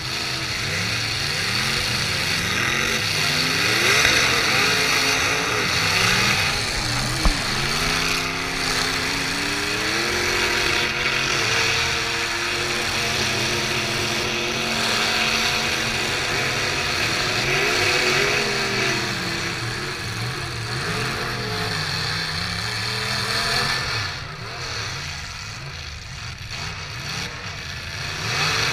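Demolition derby car engines revving up and down, more than one at once, with one sharp bang about seven seconds in. The engines ease off near the end.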